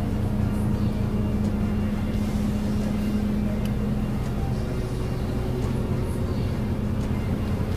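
Steady low drone of a roll-on/roll-off car ferry's engines under way, with a rush of wind and water over it. The hum shifts to a lower note about four seconds in.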